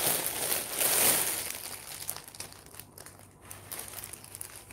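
Clear plastic bag crinkling as a wig is unwrapped and pulled out of it. The crinkling is loudest in the first second or so, then dies down to fainter, scattered rustles.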